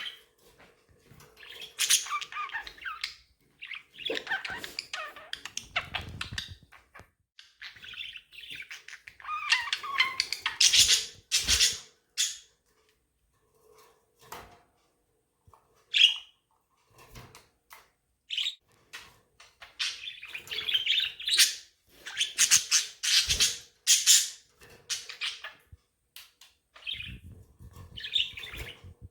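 Budgerigars chirping and chattering in busy spells of quick high chirps, with a few short pauses between spells.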